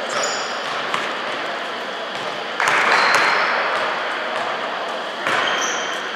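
Basketball game noise on an indoor court: a few brief high sneaker squeaks, with two louder rushes of noise about two and a half and five seconds in.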